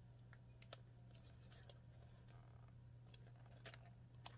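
Near silence: a faint steady hum with a few faint scattered clicks as fingers work a small metal charm ring onto a planner cover's strap loop.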